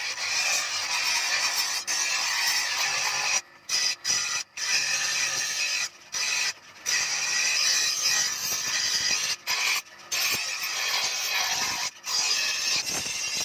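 Steel knife blade being ground on a spinning bench grinder wheel: a steady harsh grinding hiss, broken by several brief gaps.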